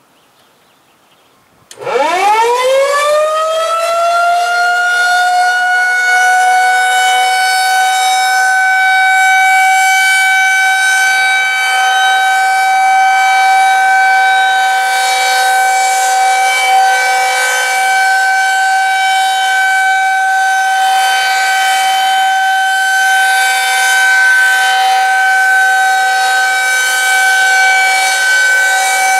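Federal Signal 2001-130AC electromechanical outdoor warning siren starting up about two seconds in. Its pitch climbs quickly and levels off into a loud, steady, high tone while the horn rotates, sounding the alert signal for a tornado drill.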